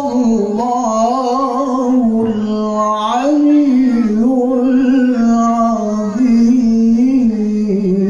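A man reciting the Quran in the melodic tilawah style, long sustained notes with ornamented turns.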